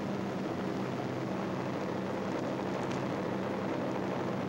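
Steady drone of piston-engined tow planes in flight, a low engine hum of constant pitch under the hiss of an old film soundtrack.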